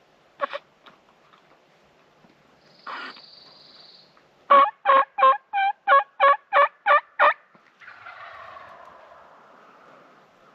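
Turkey yelping: a run of about nine loud, evenly spaced yelps, about three a second, in turkey-hunting calling. A fainter drawn-out call that falls in pitch follows near the end.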